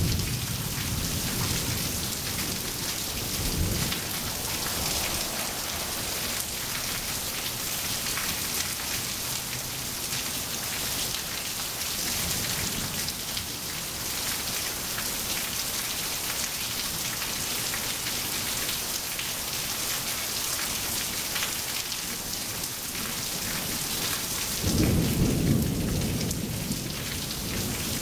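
Steady rain falling on wet pavement, with low rolls of thunder coming and going; the loudest roll comes near the end.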